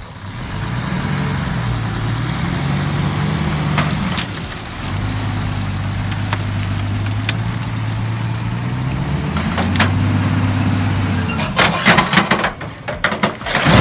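Heavy logging truck's diesel engine running under load, its pitch stepping up and down as it works. Near the end comes a burst of sharp knocks and cracks.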